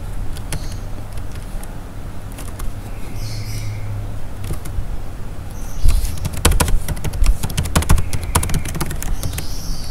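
Typing on a computer keyboard: a quick run of keystrokes starting about six seconds in and lasting about three seconds, with a few scattered clicks before it. A steady low hum sits underneath.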